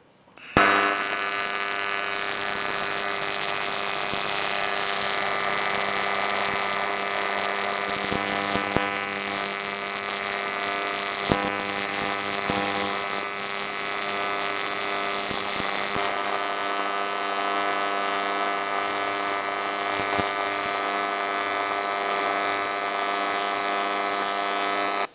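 AC TIG welding arc on aluminium plate, a steady loud electrical buzz at the 100 Hz AC frequency set on the TIG200 AC/DC welder. The arc is struck about half a second in, held evenly, and cut off at the end.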